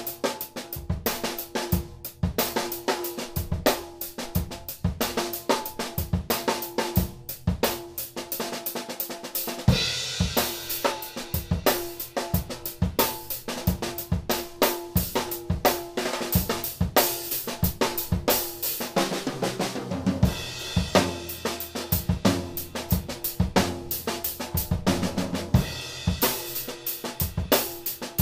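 A drum kit played in a busy groove of dense stick strokes: a PDP 6x10 popcorn snare with bass drum, hi-hat and cymbals. A steady drum ring runs under the strokes, and cymbal crashes wash over the beat about ten seconds in and again about twenty seconds in.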